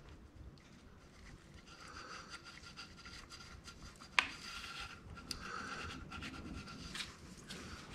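Single-edge razor blade scraping old gasket fibers off the aluminum sump mating surface of a Briggs & Stratton V-twin crankcase by hand: faint, uneven scratching, with a sharp click about four seconds in and a couple of lighter ticks later.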